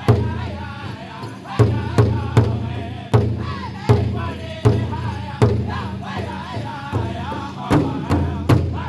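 A powwow drum group singing together in loud, high voices over a large hide-headed powwow drum struck in unison with drumsticks. The beats fall a little under a second apart, with two quicker runs of three strokes.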